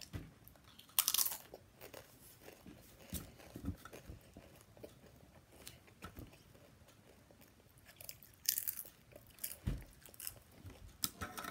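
Doritos tortilla chips being bitten and chewed: scattered crunches, loudest about a second in and again in a cluster near the end.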